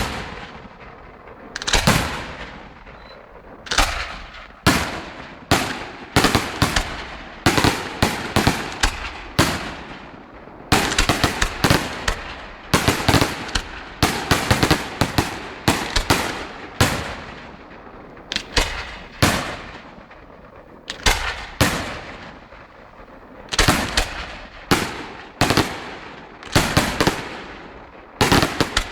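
Fireworks display: an irregular series of loud bangs, some a second or two apart and some in quick clusters, each with a short echoing tail.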